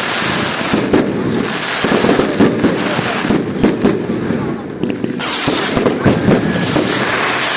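Fireworks going off in quick succession: sharp bangs and crackling, with a bright fizzing crackle from about five seconds in.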